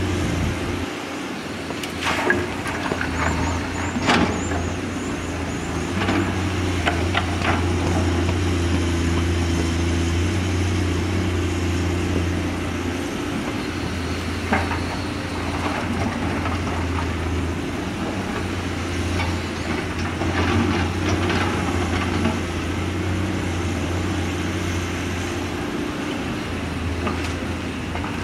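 Komatsu PC210 excavator's diesel engine running steadily under hydraulic load through a dig-and-load cycle, with sharp knocks and clatters of rock and dirt striking the steel bucket and the dump truck's bed, several in a cluster a few seconds in and again in the middle and later part.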